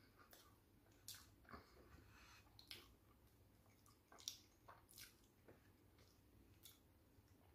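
Faint chewing of a mouthful of burger, with scattered soft wet mouth clicks and crackles; a sharper click about four seconds in.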